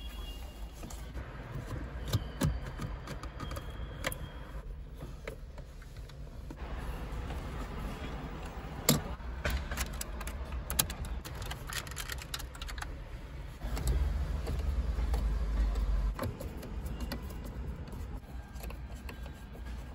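Light plastic clicks and rattles from wiring harness connectors and plastic dashboard trim being handled inside a car's centre console. A deep rumble swells for about two seconds past the middle.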